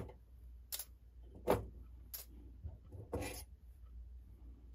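Clock movement parts handled on the bench: about five sharp, light clicks and taps, irregularly spaced, as small metal pieces are taken off and set down.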